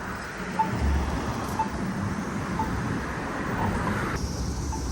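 Polara accessible pedestrian pushbutton locator tone ticking about once a second over street traffic, the signal that the crossing is in its wait (don't walk) phase.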